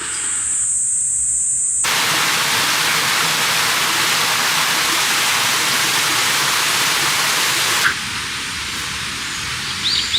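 Heavy rain, an even loud hiss that starts abruptly about two seconds in and cuts off about eight seconds in, with lighter rain after. A steady high-pitched tone sounds over the first two seconds.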